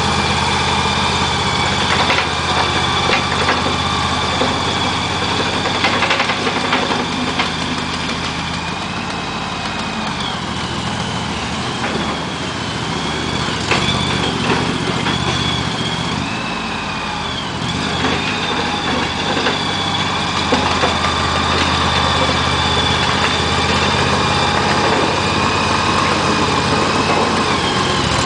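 Mini skid steer loader's 21 HP Briggs & Stratton petrol engine running steadily, with a high whine that bends up and down in pitch several times. The sound drops a little for a stretch in the middle, then comes back up.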